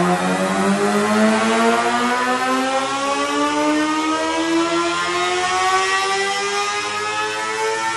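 2014 Suzuki GSX-R 750's inline-four engine, with the catalytic converter deleted and an M4 slip-on exhaust, revving under load on a Dynojet chassis dyno during a tuning pull. The pitch climbs slowly and steadily as the revs sweep up.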